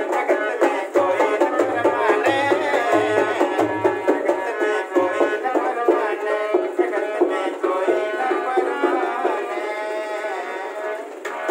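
Harmonium and dholak playing a biraha folk tune without singing. The dholak's deep bass strokes beat steadily through the first half, then drop out while the harmonium melody carries on.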